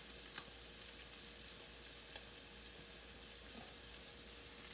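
Beef and vegetable stir-fry sizzling in oil in a hot skillet: a steady hiss with a couple of sharp pops of spattering fat.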